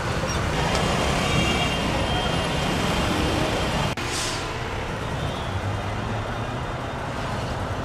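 Busy street noise: vehicle engines and traffic mixed with a crowd talking, with an abrupt change about four seconds in.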